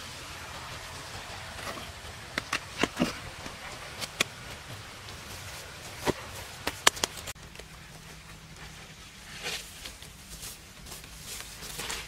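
A large stone being worked into place by hand in dirt, with a run of sharp knocks and clicks, about nine in the first seven seconds, followed by softer scraping of soil and stone near the end, over a low steady hum.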